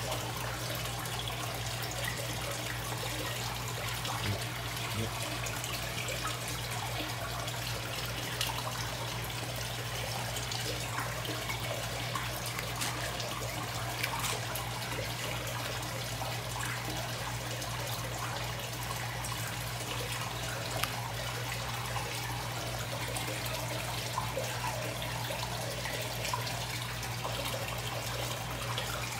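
Water trickling and lapping in an indoor fish pond, with small splashes as a hand dips food into the water and fish feed at the surface, over a steady low hum.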